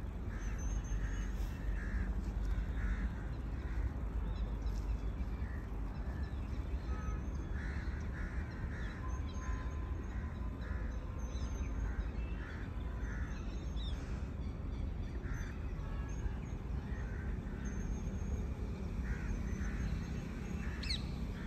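Birds calling outdoors: short calls repeated in quick runs throughout, over a steady low background rumble, with a few higher chirps.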